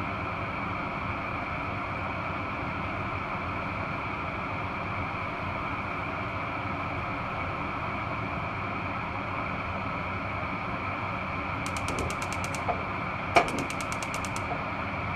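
Steady hiss and hum over a pan of creamy bacon and mushroom sauce simmering on a gas hob. About twelve seconds in come two short runs of rapid clicking, the second opening with a sharp knock.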